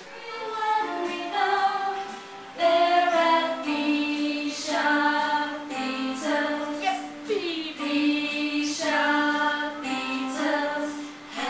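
A song sung by high voices, a melody moving through notes held for about half a second to a second each.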